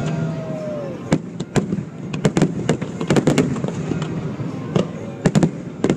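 Fireworks shells bursting overhead in a dense, irregular volley of loud bangs and crackles. A single tone holds and then falls away in the first second.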